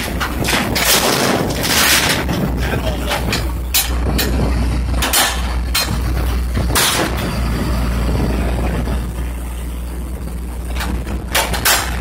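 Rear-loader garbage truck's engine running steadily while a steel dumpster is tipped and emptied into its hopper, with repeated loud bangs and clanks of the dumpster and its contents hitting the truck. The bangs come thick in the first several seconds, ease off, then two more come near the end.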